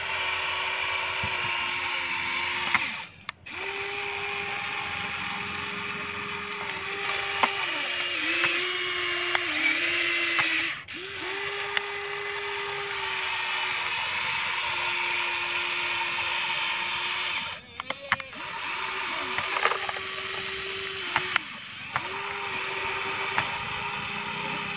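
Electric motors of a remote-control toy excavator whining as it digs, in stretches of several seconds broken by short pauses, the pitch shifting a little as different movements run. A few sharp clicks come through along the way.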